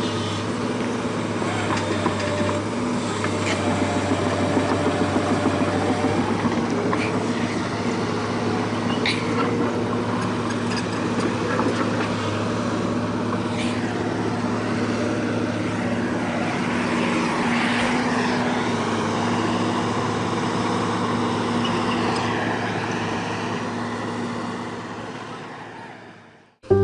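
A heavy vehicle's engine running steadily, with a few scattered knocks and clatter over it; it fades out near the end.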